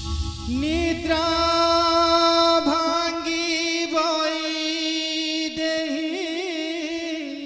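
Stage music: a singer slides up into one long held note about half a second in and sustains it, wavering near the end, over a steady drone.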